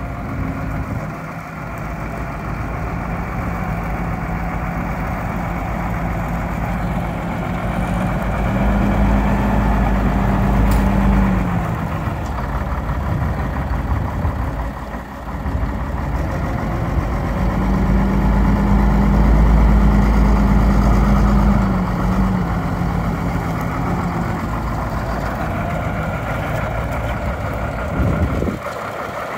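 The diesel engine of a 2001 Freightliner single-axle truck running at idle, its note rising a little and getting louder twice for a few seconds each time.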